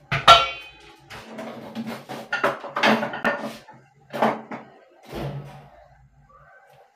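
Kitchen clatter as utensils and containers are handled and set down on a counter. It opens with a sharp ringing clink, then comes a run of short knocks and rustles that fades out about two-thirds of the way through.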